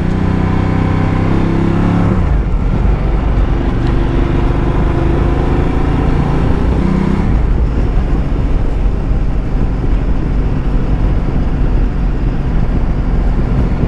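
Ducati Multistrada motorcycle under way: the engine runs steadily at first, its note shifts about two seconds in and again around seven seconds, and then it fades mostly into steady wind and road noise.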